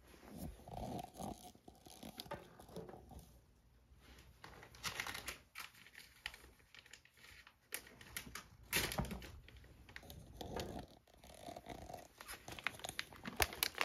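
Plastic cat-treat bag (Churu Bits) crinkling and rustling as it is handled, in scattered short crackles with a few handling clicks.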